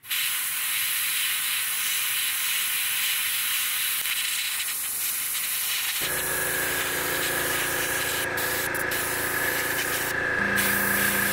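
Gravity-feed airbrush spraying thinned paint: a steady hiss of air that starts abruptly. About six seconds in, a steady machine hum with several held tones joins underneath, the air compressor running.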